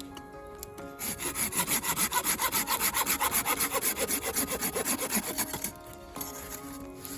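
Hand saw cutting through a piece of firewood in quick, even back-and-forth strokes, about eight to ten a second for several seconds before stopping.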